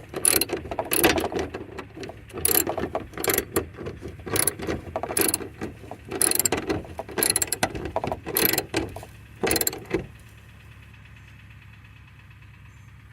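Hand socket ratchet clicking in repeated strokes as it drives a 3/8 self-threading bolt into a plastic fitting. The ratcheting stops about ten seconds in, leaving a low steady hum.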